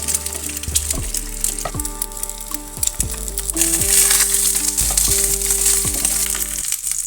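Food frying in a pan: a steady sizzle, with background music playing over it.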